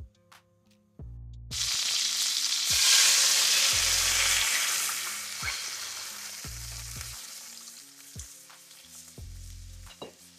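Cream poured into a hot frying pan of melted butter, starting to sizzle loudly about a second and a half in, then fading gradually as it is whisked. Background music with a repeating bass line plays underneath.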